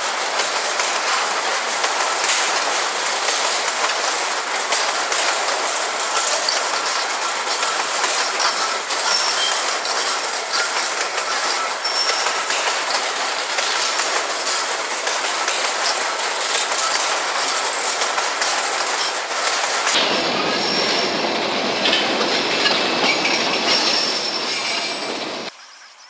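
Empty grain hopper cars of a freight train rolling past close by, a steady loud rumble of steel wheels on rail with clatter and thin, high wheel squeal. The sound drops off suddenly near the end.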